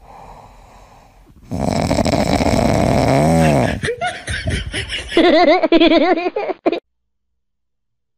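A sleeping golden retriever puppy snoring in long, noisy breaths, followed by a person's high-pitched laughter that cuts off suddenly near the end.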